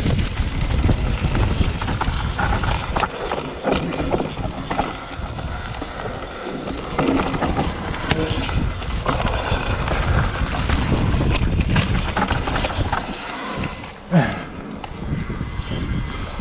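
Full-suspension mountain bike (an Orange Stage 6) descending a rough dirt trail at speed: tyres rolling over dirt, roots and leaves, constant rattling and knocking of the bike, and wind buffeting the camera microphone. One louder knock about fourteen seconds in.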